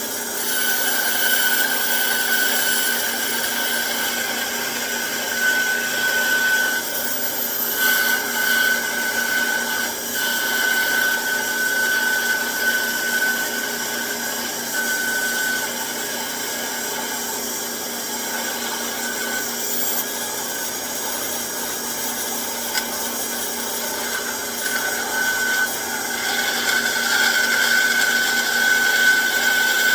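Band saw running and cutting thin wood, with a steady mechanical noise and a high whine that comes and goes as the blade works through the piece.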